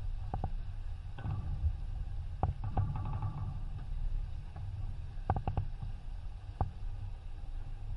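Steady low rumble of wind and water rushing past a sailing yacht under way, with a few scattered sharp knocks and clicks from the deck.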